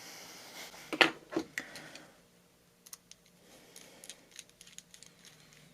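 Small clicks and ticks from a tiny screwdriver driving a small screw into an mSATA SSD board, with two sharper knocks about a second in.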